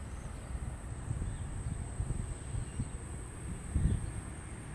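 Wind buffeting the microphone in uneven low gusts, with a faint steady high-pitched hum over it.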